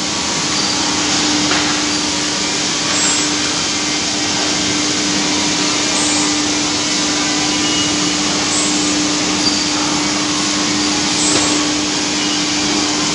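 Woodmaster single-head automatic tool-change CNC router cutting a wood panel with its dust extraction running: a steady rushing noise with one steady humming tone under it.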